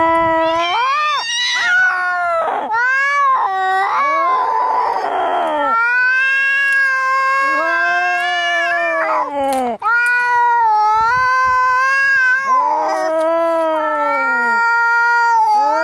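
Cats yowling in a fight: long, wavering caterwauls that rise and fall in pitch, one after another with only brief breaks. About four seconds in, a harsh, raspy stretch lasts nearly two seconds.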